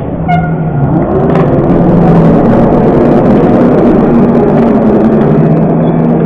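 Crowd in a school gym cheering and shouting during a basketball game, swelling about a second in and staying loud. A short, high squeak sounds near the start.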